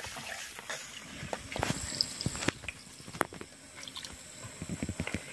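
Food being stirred in a pan over a fire: wet squelching and scattered sharp clicks of the utensil against the pan, with a faint steady high hiss.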